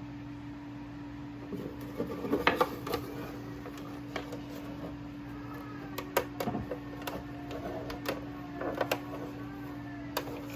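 Scattered light clicks and taps of a cracked plastic fridge shelf being handled and worked with a soldering iron, over a steady low hum. A baby babbles faintly in the background toward the end.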